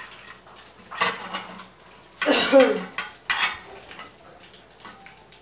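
Kitchen knife and dishes clinking and clattering on a counter while sausages are sliced, with three louder clattering hits about one, two and a half and three and a half seconds in.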